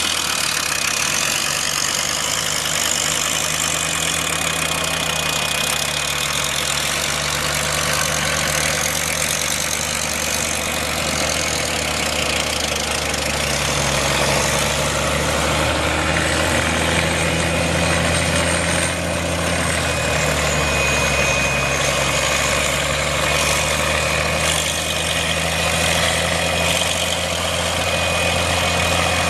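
Engine of a Ram track drill and compressor running steadily at idle, its pitch shifting slightly a few times.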